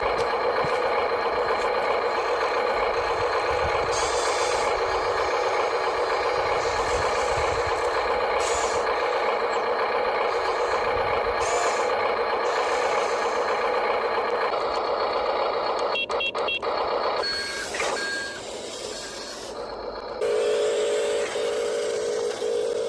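RC truck running with a steady pitched mechanical hum, with short high beeps about two-thirds of the way in and a regularly pulsing tone near the end, typical of a reversing alarm.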